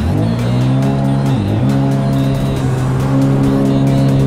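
Sea-Doo RXP-X jet ski engine running steadily at cruising speed. Its pitch dips sharply and recovers twice, at the start and about a second and a half in, as the craft rides over the water.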